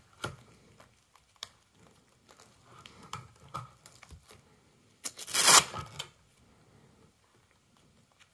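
Plastic binder sheets of trading cards being handled and turned: scattered small clicks and soft rustling, with one loud plastic crinkle about five seconds in that lasts about a second.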